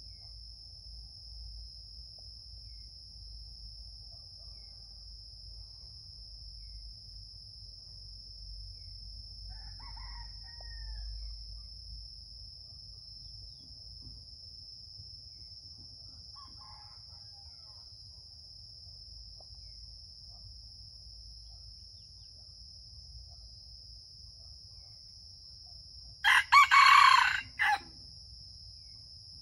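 A junglefowl rooster crows once, loud and about a second and a half long, a few seconds before the end. Two faint short calls come earlier, over a steady high-pitched drone.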